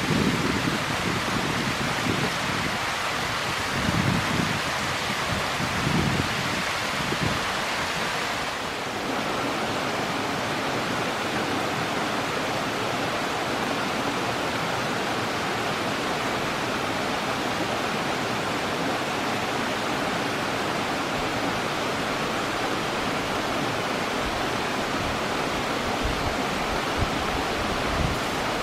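Steady rushing of a forest stream. A few low rumbles come in the first several seconds, and after a slight change about a third of the way in, the rush holds even.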